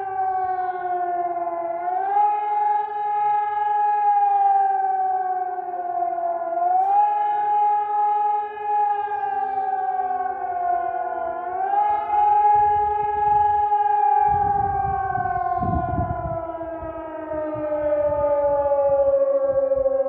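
Civil defence siren sounding the German public warning signal, a rising and falling wail. The pitch climbs quickly about every five seconds and sags in between. After the third climb it slides steadily down. A low rumble comes in about two-thirds of the way through.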